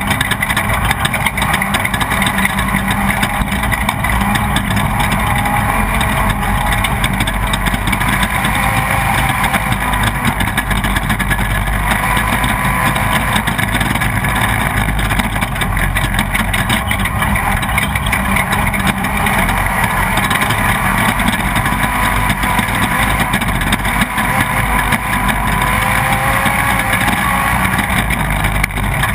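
Off-road race vehicle's engine running hard and continuously, heard from on board, its pitch wavering slightly as the revs change.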